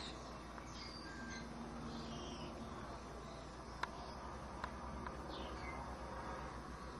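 Faint bird chirps and calls scattered over a steady low hum, with a couple of sharp clicks a little past the middle.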